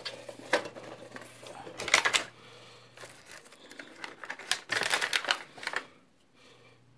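Plastic packaging crackling and clicking as an action camera is unpacked: the clear plastic tray and bags are handled and the camera in its clear plastic waterproof housing is lifted out. The sounds come in clusters of sharp crinkles and taps, the longest between about four and a half and six seconds.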